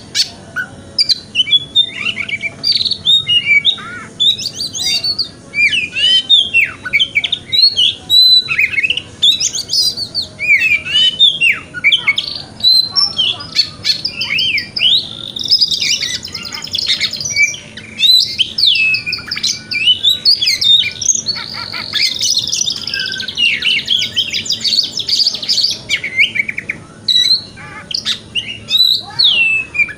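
Oriental magpie-robin singing continuously: a fast, varied run of whistled notes and sweeping phrases in the 'wikplong' style, mixing quick chattering with clear ringing notes, and broken by rapid buzzy trills around the middle.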